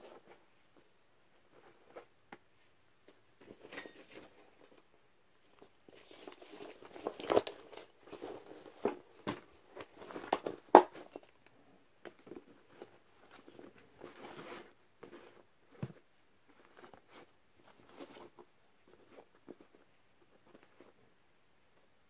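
Canvas gas mask carrier bags being handled on a cloth: fabric rustling with irregular taps and clicks, busiest and loudest in the middle, sparse ticks either side.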